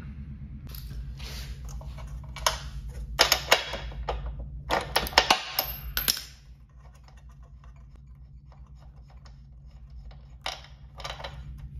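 Ratchet and spark-plug socket breaking loose and backing out the spark plug of a 1950s Craftsman two-stroke mower engine: several seconds of metal clicking and scraping, then a few quieter clicks near the end as the plug is turned out by hand, over a steady low hum.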